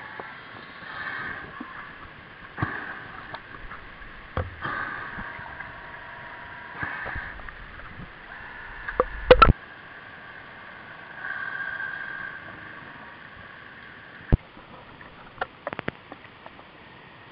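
Whine of a radio-controlled model submarine's electric motor heard underwater, rising and falling every couple of seconds. A burst of loud sharp knocks comes about nine seconds in, and a few clicks follow near the end.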